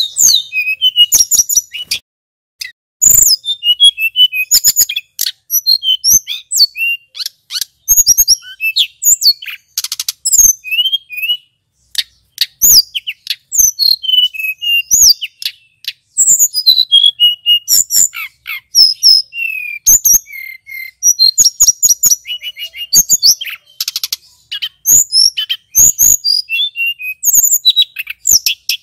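A male tledekan gunung, a Cyornis blue flycatcher, singing a long run of quick, varied whistled phrases and rapid trills, broken by a few short pauses.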